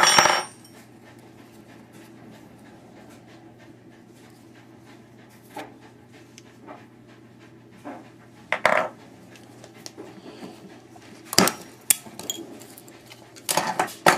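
A wrench and brass gas fittings clinking and knocking against each other as the steel insert is worked out of a grill's brass connection. There are a few separate sharp clanks, the loudest right at the start, and three more in the second half, over a faint steady hum.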